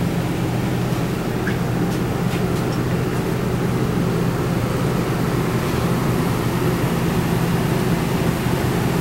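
A steady mechanical hum with a low drone and an even rushing noise behind it, unchanging throughout.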